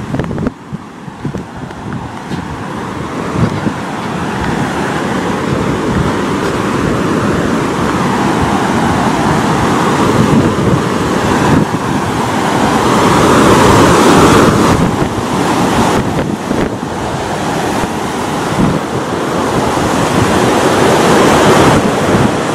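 Rushing water of a swollen, muddy river running over rocks, growing steadily louder.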